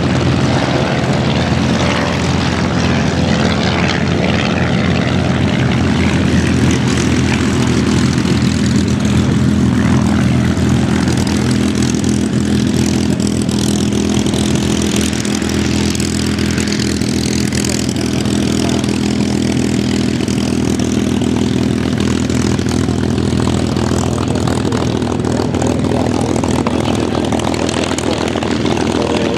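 Merlin V12 piston engines of P-51D Mustang and Hispano Buchon fighters running steadily at low power as the aircraft taxi past.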